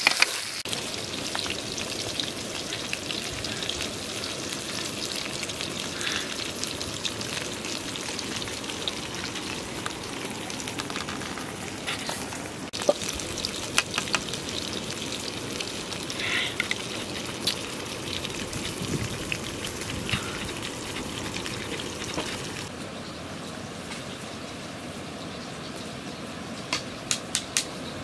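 Whole fish sizzling as they fry in hot oil in a steel wok over a wood fire, a steady hiss with scattered sharp pops. The hiss thins and quietens about five seconds before the end.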